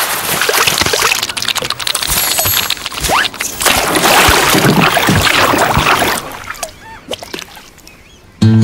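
Wet splashing and sloshing water with many small squelchy clicks, thick at first and dying away over the last few seconds. Acoustic guitar music starts just before the end.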